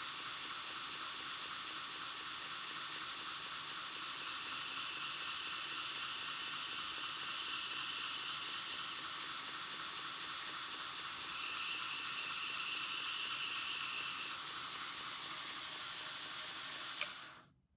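Belt sander running at low speed with a twist drill bit ground against its abrasive belt: a steady grinding hiss, louder in two stretches of a few seconds each, as one cutting lip of a dull bit is sharpened. It cuts off abruptly near the end.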